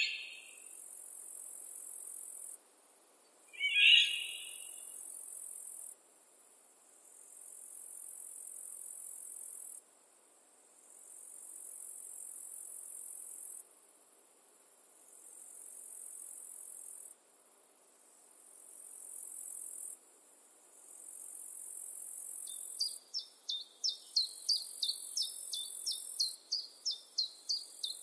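Spring woodland soundscape: a high-pitched, insect-like trill repeats in phrases of about three seconds with short breaks. Two loud bird chirps come at the start and about four seconds in. A bird sings a rapid run of sharp notes, about three a second, over the last five seconds.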